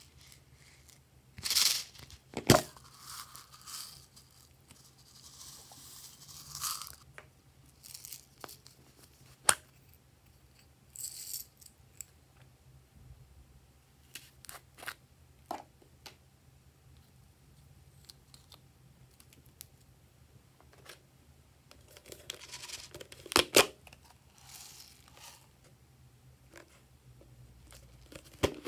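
Hands handling and opening small plastic toy containers: scattered sharp plastic clicks and snaps between soft rustles. The biggest cluster of noise comes about two seconds in, and another comes shortly before the end.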